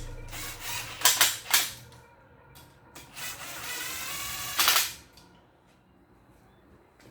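Two sharp knocks about half a second apart, then a rough scrape lasting nearly two seconds that cuts off suddenly: parts or tools being handled during work on an engine block.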